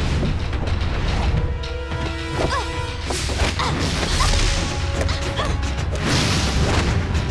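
Dramatic action score with cartoon fight sound effects: whooshes and hits over a low rumble, with two loud rushing hisses, one about three seconds in and one near the end.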